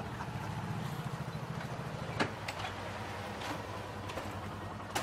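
Small motorcycle engines idling with a steady low putter, with a few light clicks over it.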